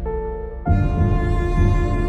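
Background soundtrack music, dark and tense, with sustained notes; a fuller chord comes in about two thirds of a second in.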